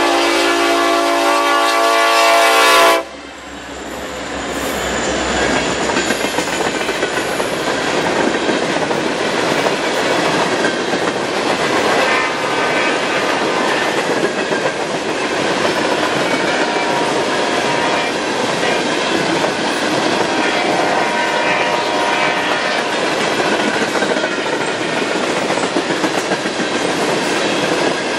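A Norfolk Southern freight train led by two SD70ACE diesel locomotives sounds a loud multi-tone horn blast that cuts off about three seconds in. The locomotives then pass and a string of coal hopper cars rolls by with steady wheel-on-rail rumble and clickety-clack.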